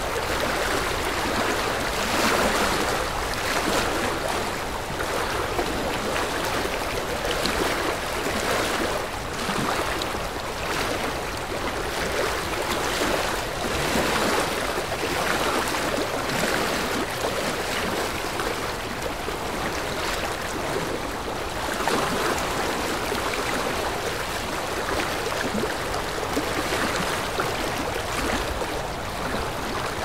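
Sea water sloshing and splashing in a continuous wash, with small irregular swells and no breaks.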